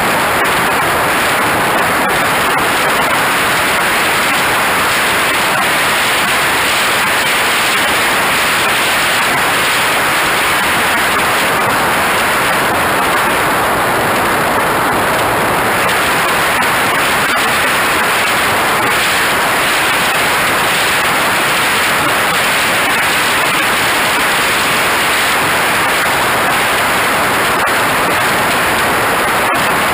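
Steady, loud rushing of airflow over the microphone of a camera mounted on a radio-controlled jet's wing in flight, with no distinct engine tone.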